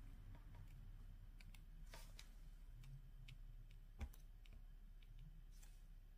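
Faint, irregular small clicks of tweezers picking up diamond-painting drills and tapping them onto the canvas, with one sharper tap about four seconds in, over a low steady hum.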